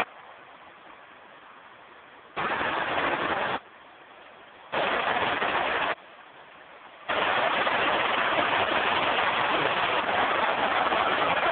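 Steady rushing noise of falling water from an artificial waterfall. It switches abruptly between loud and much fainter stretches, faint at first, loud twice for about a second each, then loud and steady from about seven seconds in.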